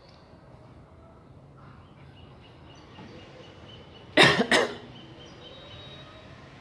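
A person coughing twice in quick succession, two short harsh bursts a little past halfway.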